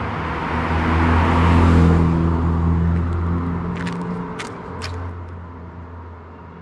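An Alpine sports car driving past, its engine note swelling to a peak about two seconds in and then fading away.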